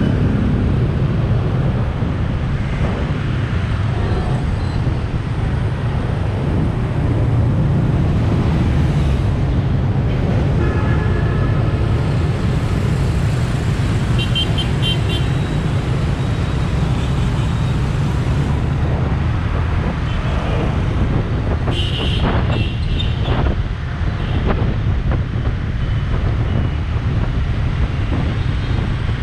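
Busy motor-scooter traffic heard from the back of a moving scooter: a steady, loud low rumble of engines and road noise. A few short horn beeps from nearby motorbikes sound now and then.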